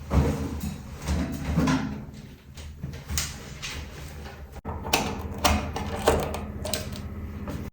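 Household clatter: a series of knocks and clicks as things are handled and doors or drawers are moved, over a low steady hum.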